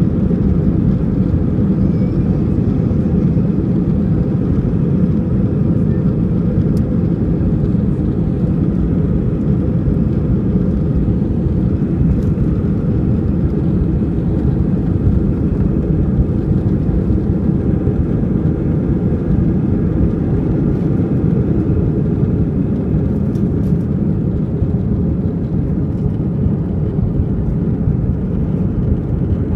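An Airbus A319's jet engines at take-off thrust during the take-off run and climb-out, heard inside the cabin as a loud, steady low noise.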